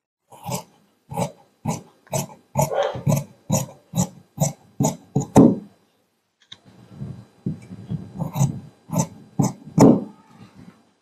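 Large tailor's shears cutting through a layer of khaki shirt cloth with a run of crunchy snips, about two a second. They pause briefly about six seconds in, then snip on again. The blades are cutting the shirt's back panel along chalk marks.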